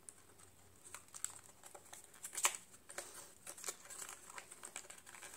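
Packaging crinkling and rustling in the hands, with scattered light clicks, as a small lipstick is unpacked.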